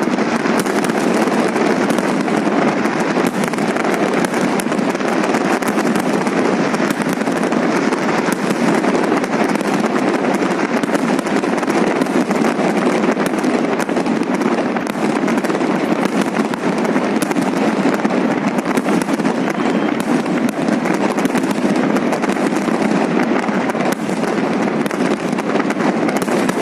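A fireworks salute going off: a dense, continuous stream of bangs and crackles with no let-up.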